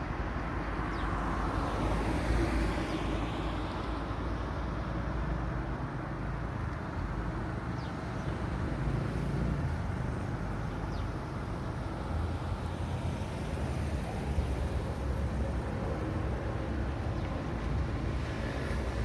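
Road traffic at a crossroads: a steady hum of engines and tyres from passing cars, with a vehicle going by louder about two seconds in.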